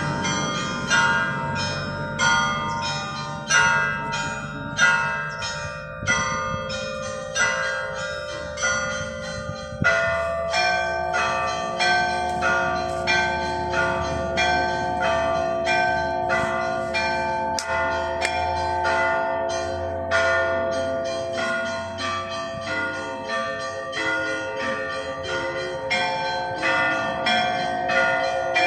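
Russian church bells ringing a continuous peal (zvon). Smaller bells are struck quickly, about two or three strokes a second, over the long ring of larger bells, and new deeper bell tones join about ten seconds in.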